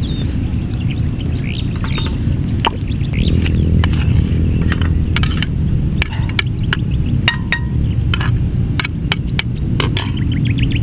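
A metal spoon and a plate clinking and tapping against a cooking pot, with a run of sharp clicks in the second half, over a steady low rumble.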